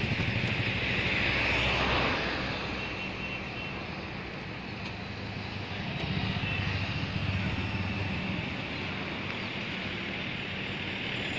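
Road traffic: vehicle engines running with a steady low hum, swelling louder twice as vehicles pass.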